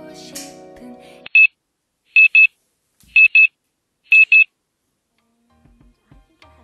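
Background music that stops about a second in, followed by an alarm beeping: one high beep, then three quick double beeps about a second apart, after which it stops. Faint low knocks near the end.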